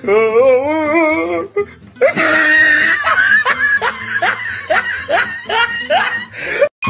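A wavering held note, then from about two seconds in a long run of laughter with music, cut off sharply at the end.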